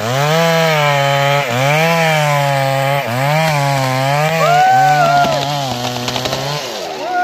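Two-stroke chainsaw running at high revs while cutting into the trunk of a standing tree. Its pitch sags and recovers about every second and a half as the bar bites into the wood, and it eases off near the end.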